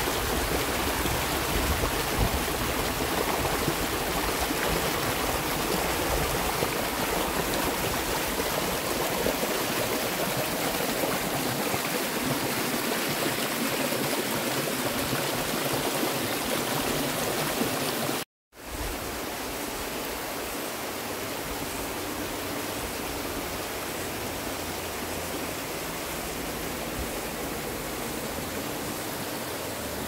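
Waterfall water rushing in a steady, dense noise. It cuts out for a moment about 18 seconds in and comes back a little quieter.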